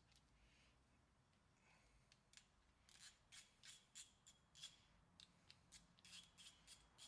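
Faint, irregular metallic clicking from a hand-held brake line flaring tool being worked and handled, a quick run of a dozen or so clicks starting a little after halfway.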